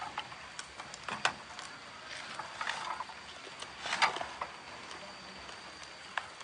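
Eating sounds: a string of small sharp clicks and short crunchy rustles, louder about a second in and around four seconds in.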